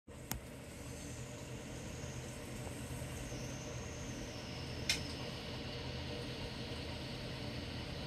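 Steady low hum with a faint high whine that slowly drifts lower, broken by two sharp clicks: one just after the start and one about five seconds in.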